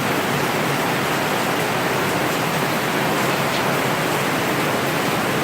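Heavy hurricane rain falling steadily, with runoff pouring from makeshift tarps: a dense, even rush of water that does not let up.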